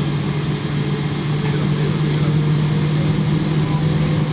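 Cabin noise of a Boeing 777-300ER's GE90 engines heard through the fuselage as the airliner taxis: a steady low hum with a faint tone that slowly rises in pitch, growing a little louder after about a second and a half.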